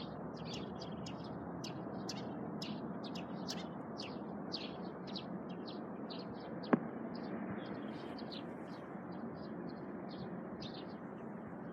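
Small birds chirping in rapid short calls over steady background noise, with one sharp click a little over halfway through.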